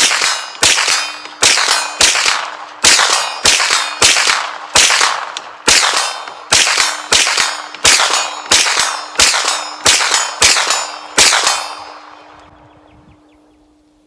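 Hi-Point 995TS 9mm carbine fired in a quick string, about seventeen shots at roughly two a second, each a sharp crack with an echo; the firing stops about eleven seconds in. A steel target keeps ringing from the hits.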